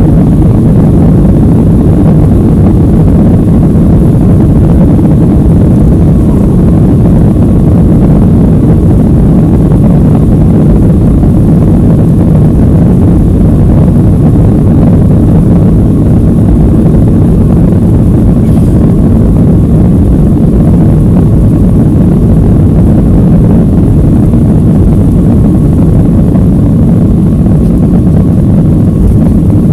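Loud, steady rumble of a Ryanair Boeing 737-800's jet engines heard from inside the cabin as the airliner rolls along the runway on departure.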